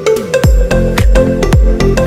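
Electronic dance music as background music: a heavy bass beat comes in about half a second in, with a deep falling bass hit about twice a second over sustained synth tones.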